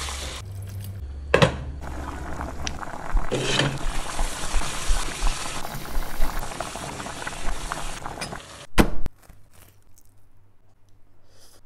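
Curry bubbling in a nonstick pot while a wooden spatula stirs through it, with a few sharp knocks of the spatula against the pot. About nine seconds in the cooking sound stops, leaving only faint quiet sounds.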